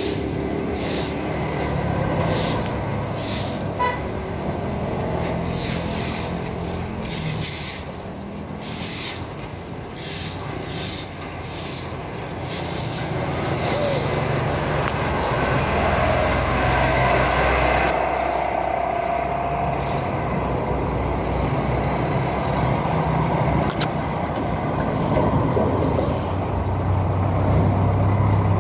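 Stick broom swishing in quick repeated strokes across wet concrete, thinning out after about twelve seconds, over a steady low rumble of road traffic and vehicle engines.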